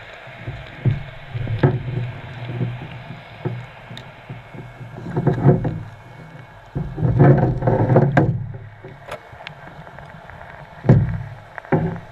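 Underwater sound beside a working commercial diver: the rumbling bubble bursts of his exhalations, about a second each with the longest two past the middle, and scattered sharp clicks and knocks of gear against the steel.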